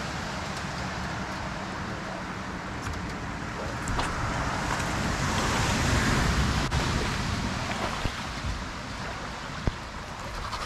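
Hurricane wind and rain on the microphone and boat: a steady rush of noise that grows louder around the middle, with a few sharp ticks.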